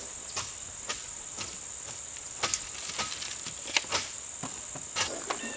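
Insects in a steady, high-pitched chorus, with irregular sharp knocks about once a second, the loudest about two and a half and nearly four seconds in.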